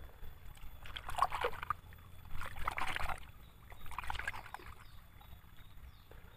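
Sand and small plastic toys rustling and scraping as hands dig through the load of a toy dump truck, in three short bouts: about a second in, around two and a half seconds in, and around four seconds in.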